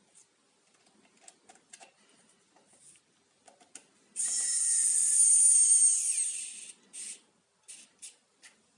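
Small motor of a WOWSTICK 1F+ electric precision screwdriver running with a high-pitched whine for about two and a half seconds, a little over four seconds in. Scattered light clicks come before and after it.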